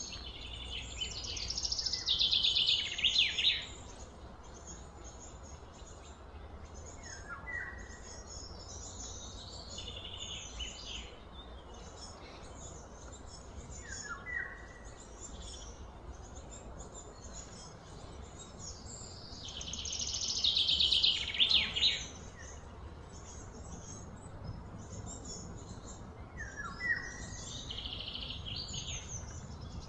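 Outdoor birdsong: a short falling call repeats every six or seven seconds. Two louder bursts of rapid high trilling come about two seconds in and again about twenty seconds in.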